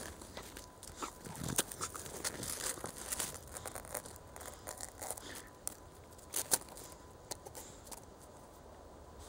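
Irregular crunching and crackling of snow as a chow chow puppy rolls and pushes its face through it, busy over the first few seconds and thinning out in the second half.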